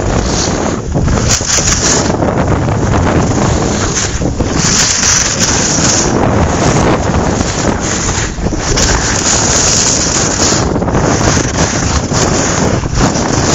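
Strong wind buffeting the camera's microphone: a loud, gusting rumble and hiss that swells and dips unevenly.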